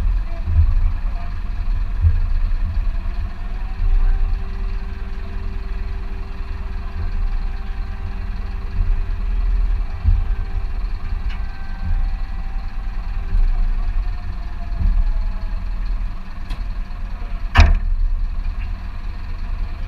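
TLF 16/24 fire engine's engine rumbling low from on board the moving truck. About five seconds in a faint distant siren tone rises, holds for about eight seconds and falls away. Near the end there is one sharp knock, the loudest sound.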